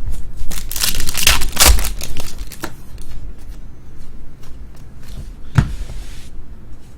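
Trading card pack wrapper being torn open and crinkled in the hands during the first couple of seconds, followed by quieter handling of the cards with one sharp click about five and a half seconds in.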